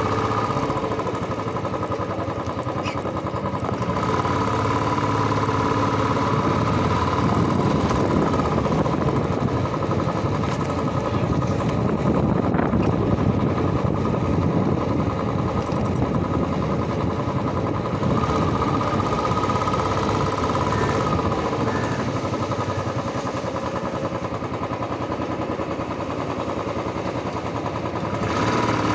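Royal Enfield motorcycle engine running steadily as the bike rides along, with only mild rises and falls in loudness.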